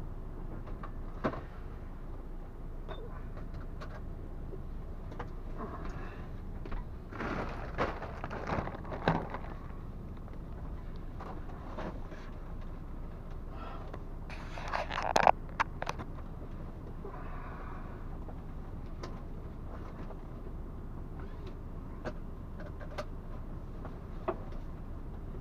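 Truck on the move, heard from inside the cab: a steady low engine and road rumble with scattered clicks and rattles. There is a louder clatter about seven to nine seconds in and again around fifteen seconds.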